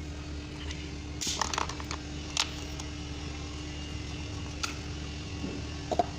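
A few short, sharp clicks and knocks of tools or parts being handled during work on a car, a small cluster about a second in and single ones later, over a steady low hum.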